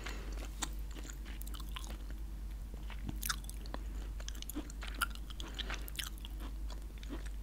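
Chewing gum close to the microphone: irregular, clicky mouth sounds.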